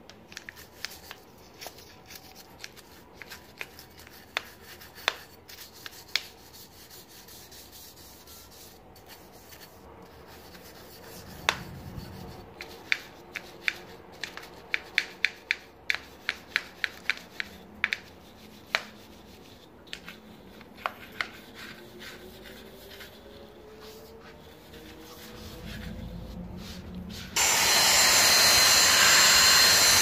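A small brush scrubbing a sliding window's sash rail to break up dried, caked-on dirt: scratchy rubbing with many sharp clicks and ticks, a quick run of them in the middle. Near the end a cyclone vacuum cleaner switches on and runs loud and steady with a high whine.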